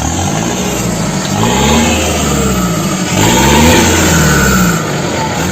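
Ford F250's four-cylinder Cummins turbo-diesel revved twice from idle, each rev rising and falling in pitch, through a 3-inch exhaust diffuser mounted right after the turbo with the muffler moved to the end of the pipe.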